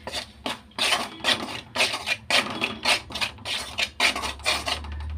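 A utensil scraping and clattering against a steel kadai while stirring wheat flour, in quick strokes about four a second. A low hum swells near the end.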